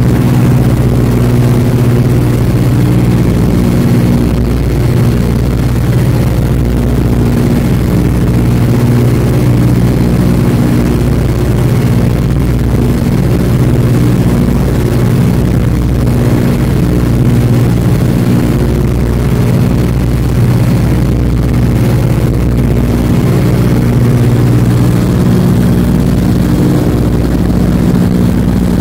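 Ford Tri-Motor's radial engines running steadily in cruise flight, heard from inside the cabin: a loud, even, low drone with a slow waver in its tone.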